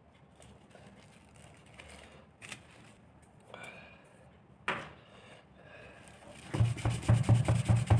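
Faint clicks and scrapes as a folded sandpaper pad is laid on the hot soleplate of an electric iron. Near the end, fast, even scrubbing strokes start, about four or five a second, as the pad is rubbed over the soleplate to scour off grime.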